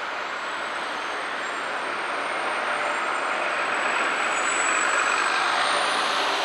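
Truck-mounted crane running: a steady mechanical rush that swells slowly, with a faint high whine that climbs in pitch near the end.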